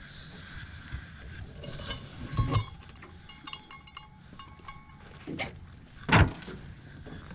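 Steel anchor chain being lifted and handled on a boat: scattered metal clinks and knocks, with a thin metallic ringing in the middle and two sharper knocks about two and a half and six seconds in.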